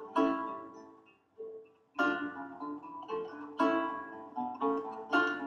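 Background music on a plucked string instrument: chords struck about every second and a half, each ringing out and fading, with single notes picked between them.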